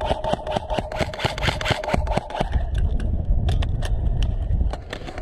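Airsoft electric rifle fire: a buzzing full-auto burst for about the first half, then scattered sharp shots and clicks until shortly before the end. Wind rumbles low on the microphone.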